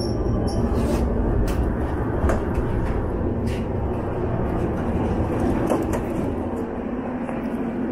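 St Petersburg metro train at a station stop, heard from inside the car and then from the platform: a steady low rumble with scattered clicks and knocks.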